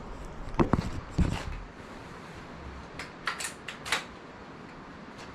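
Sharp knocks and a heavier thud about a second in, then a quick run of five light clicks around three to four seconds in, from the Gamo Phox air rifle being handled and worked between shots.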